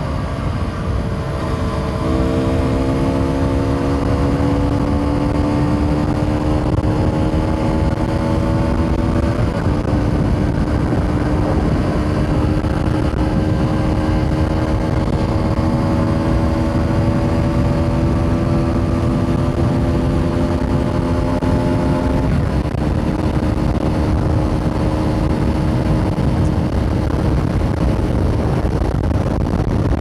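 Aprilia SX125 supermoto's 125 cc single-cylinder four-stroke engine running under way at steady throttle. Its note climbs slowly, with small shifts in pitch near the start, about ten seconds in and again about twenty-two seconds in, over heavy wind rumble on the helmet microphone.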